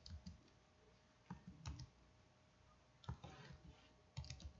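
Faint typing on a computer keyboard: scattered single keystrokes, then quicker runs of keystrokes from about three seconds in.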